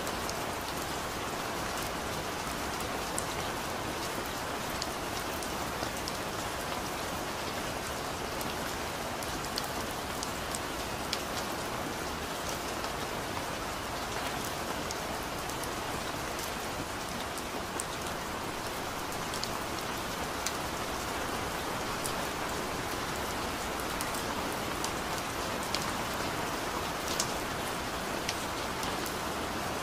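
Steady recorded rain falling, an even hiss with many small scattered drop ticks, used as the audible cover track of a subliminal recording.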